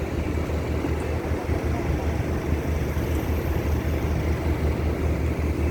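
Concrete pump engine running steadily at a site pour: a continuous low, pulsing rumble.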